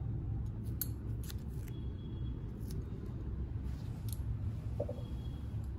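Steel garden scissors being handled and set down: several short, light metallic clicks spaced irregularly over a steady low background hum.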